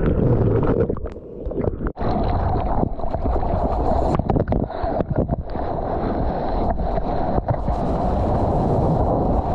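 Churning whitewater washing and splashing over a surfboard-mounted action camera, with wind buffeting the microphone. It is muffled for the first two seconds while the camera is under water, then opens into a steady surf wash.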